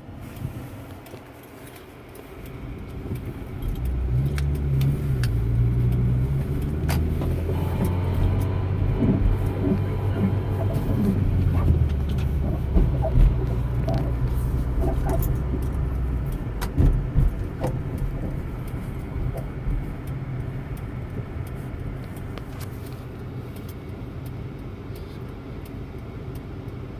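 A car making a horrible low droning noise. It grows louder about three seconds in, stays loud with scattered clicks and knocks, then drops to a quieter steady drone after about sixteen seconds.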